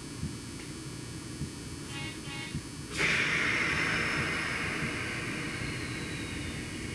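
Nagano Electric Railway 1000-series limited express running, with a steady low rumble of wheels on track. About three seconds in, a loud hissing screech from the wheels starts suddenly and slowly fades, with a thin whine that glides down in pitch.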